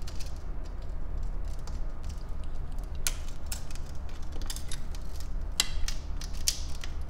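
Scored window glass being snapped along a circular score line with glass pliers: a scatter of sharp little ticks and cracks, irregularly spaced and thicker in the second half, over a steady low hum.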